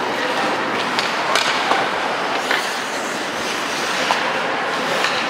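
Ice hockey play: skate blades scraping and carving on the ice under a steady hiss, with a few sharp clacks of sticks and puck scattered through it.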